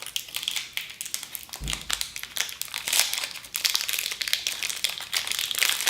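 Crinkling of a plastic lollipop wrapper being handled and pulled open, a dense run of irregular crackles.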